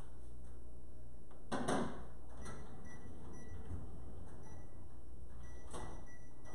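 A microwave oven door is shut with a thump, followed by a few faint short keypad beeps as it is set, and a second knock near the end.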